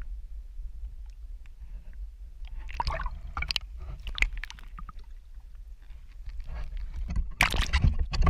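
Water splashing and sloshing around a kayak, with scattered knocks and a loud burst of splashing near the end, over a steady low rumble.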